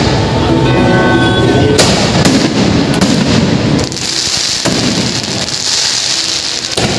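Aerial firework shells bursting overhead in quick succession, sharp bangs over a continuous rumble, with a high hissing crackle taking over in the second half.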